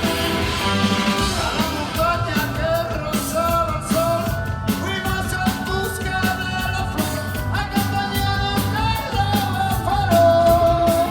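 Live rock band playing from the audience, a singer's voice over electric guitars, bass and drums.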